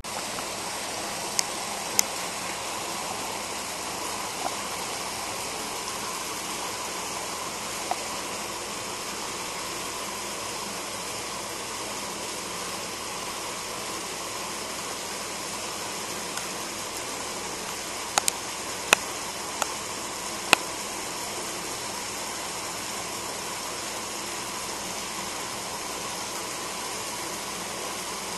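Steady rush of running water, as from a crocodile pool's water inflow. A few sharp clicks come about 2 s in and again between about 18 and 20 s in.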